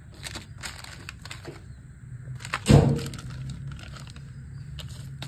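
Plastic packaging rustling and crinkling as new timing-chain guides and tensioner parts are handled, with one loud thump about two and a half seconds in, over a steady low hum.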